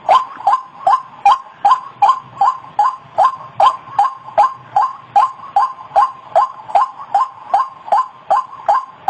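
White-breasted waterhen calling: one short, slightly falling note repeated evenly about two and a half times a second without a break.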